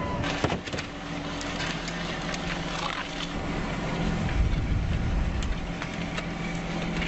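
Steady hum of a fishing boat's engine and line hauler as the crab line is pulled aboard over the rail, with scattered clicks and knocks from the line and gear.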